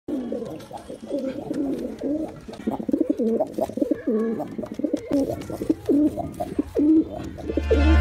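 Domestic white pigeons cooing over and over, their low calls overlapping. Music with a heavy bass comes in near the end.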